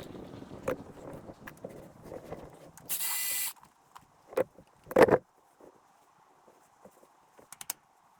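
Metal tools and parts being handled under a truck: rustling and small clicks, a short hissing burst about three seconds in, then two loud metal clunks near the middle, and a few light clicks near the end.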